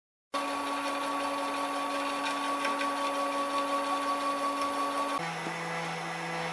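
StoneFlower 3.0 clay 3D printer's stepper motor whining steadily as it drives the clay extruder during priming. About five seconds in, the whine drops to a lower steady pitch.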